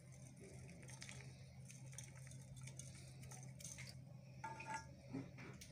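Near silence: a steady low hum with a few faint soft crackles as a seasoning cube is crumbled over the pot.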